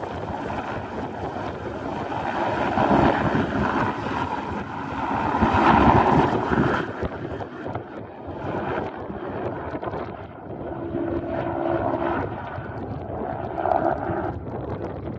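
Eurocopter AS350B2 single-turbine helicopter lifting off and climbing away: main rotor and turboshaft engine noise, loudest about six seconds in and then swelling and easing as it departs, with gusty wind buffeting the microphone.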